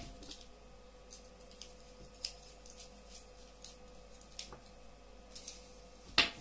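Small scattered clicks and taps of a plastic headphone earcup housing and a small screwdriver being handled during disassembly, with one sharper click near the end. A faint steady hum sits underneath.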